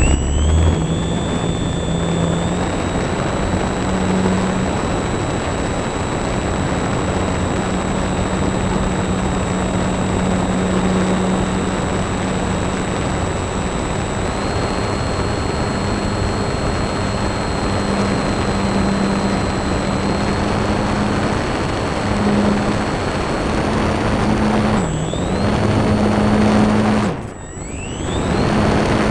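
Remote-control model aircraft's motor and propeller running steadily with a high whine and a rush of air, heard from a camera carried on board. Near the end the motor throttles down and spins back up twice.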